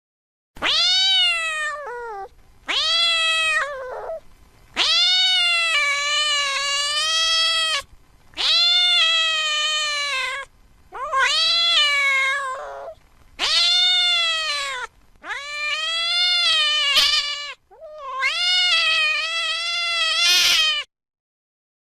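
Cat meowing: eight long, drawn-out meows in a row, each dropping in pitch at the end.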